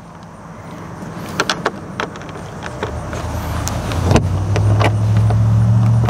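Sharp clicks and knocks of a camper's compartment door and its new thumb-lock latch being worked and shut to test the latch, under a low vehicle engine hum that grows louder over the second half.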